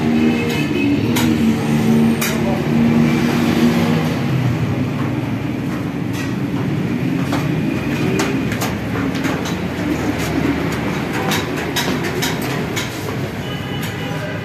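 A road vehicle running in traffic: a steady engine hum over road noise, with scattered short clicks and knocks. The hum is clearest in the first few seconds.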